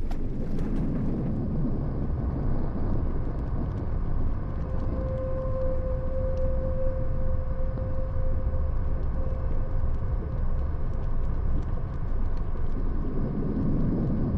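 Ambient cinematic score: a low, steady rumbling drone, joined about five seconds in by a single held tone that fades out again a few seconds later.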